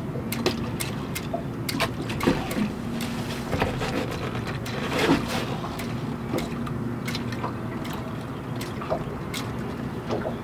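Water lapping and sloshing against a boat's hull, with scattered small knocks and clicks throughout.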